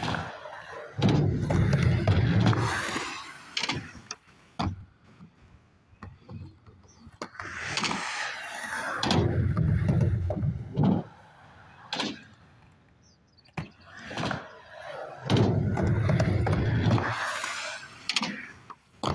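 Skateboard rolling three times in a row, each pass a rough rumble of urethane wheels over the concrete and steel ramps lasting two to three seconds, with sharp wooden clacks of the board's tail popping and landing between the passes.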